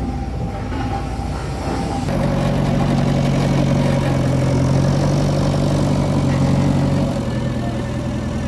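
Diesel engine of an earth-moving machine running steadily, growing louder about two seconds in and easing back a little near the end.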